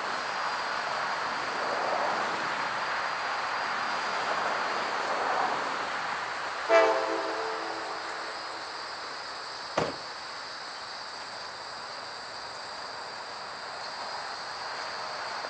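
GE C40-9W and C40-8W diesel locomotives idling at a standstill, a steady rumble. About a third of the way in, a multi-chime locomotive horn gives one short blast, loud at the start and trailing off over a couple of seconds. A sharp knock follows soon after.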